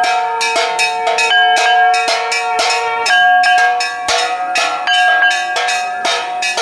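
Temple bells rung rapidly, about three to four strikes a second, their ringing tones at several pitches overlapping. This is typical of bells rung for a Hindu aarti.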